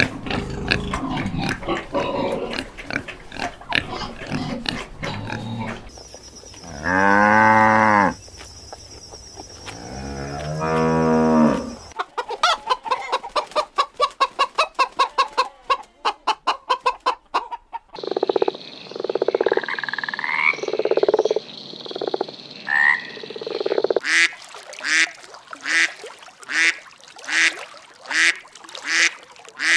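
A run of different animal calls, switching to a new animal about every six seconds: two long, drawn-out calls, then a fast string of short repeated calls, a mix of short calls, and finally a call repeated about once a second.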